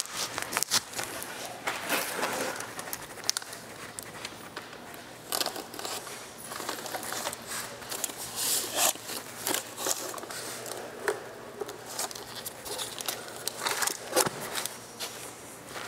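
Plastic film crinkling, with irregular scrapes and taps as a marble hearth slab is handled and set down onto freshly troweled adhesive.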